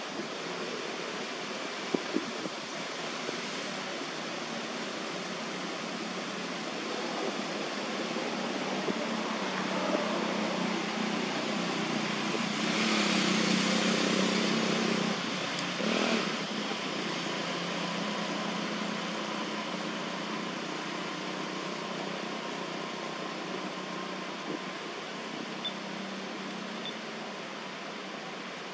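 Steady outdoor background noise with a low hum under it, swelling louder for a couple of seconds about halfway through, with a few faint knocks.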